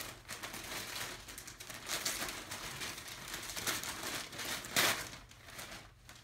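Gift-wrapping paper crinkling and tearing as a parcel is unwrapped by hand, in irregular rustling bursts, loudest about five seconds in.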